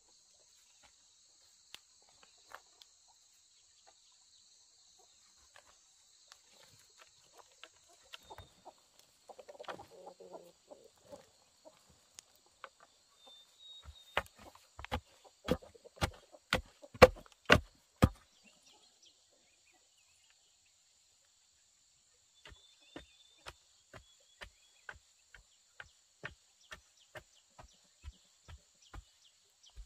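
Chickens clucking over a steady high hum, with two runs of sharp knocks: about ten loud ones, two or three a second, in the middle, and a softer, slower, evenly spaced series near the end.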